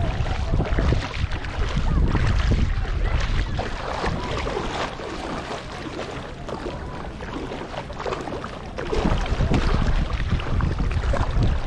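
Wind buffeting an action camera's microphone held just above the water, with shallow lagoon water lapping and sloshing close by. The wind rumble eases about five seconds in and picks up again near nine seconds.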